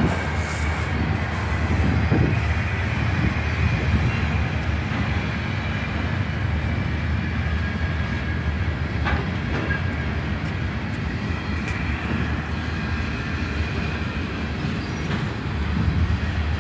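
Freight cars rolling past on the rails: a steady low rumble of wheels on track, with a faint high wheel squeal at times and an occasional click.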